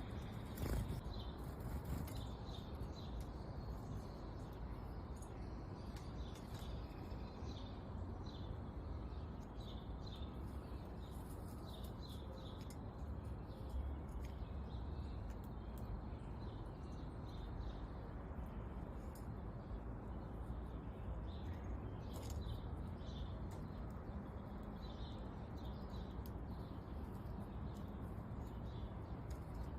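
Small songbirds chirping: many short, high chirps scattered throughout, over a steady low background noise.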